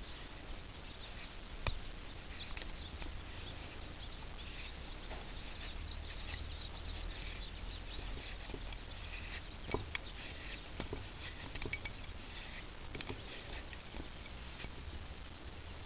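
Faint, irregular small clicks and scratching over a low steady hum, a few sharper ticks scattered through, loudest about two seconds in and near ten seconds in.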